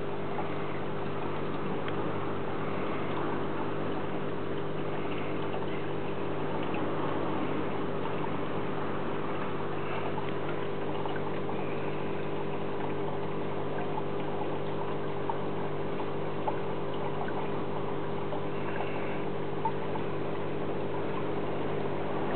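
Aquarium equipment running steadily: a low electric hum with the bubbling and trickling of water from air-driven sponge filters.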